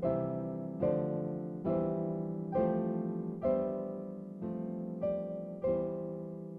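Background music on piano: chords struck about once a second, each ringing and fading before the next.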